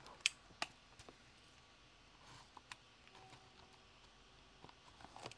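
Quiet handling of a shrink-wrapped trading card box, with a few faint sharp clicks: two in the first second and one more near the middle.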